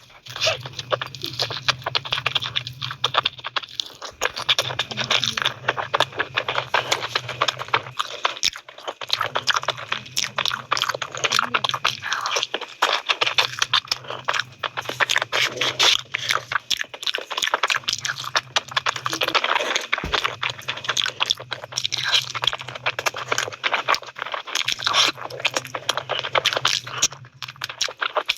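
A person chewing and biting food close to the microphone, with many quick crunches and wet mouth clicks. A low hum comes and goes in stretches of a few seconds.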